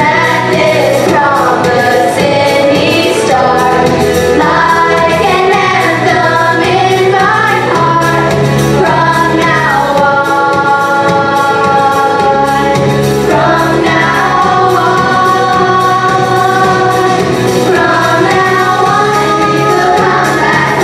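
Stage musical number: a cast of children and teenagers singing together in chorus over instrumental accompaniment.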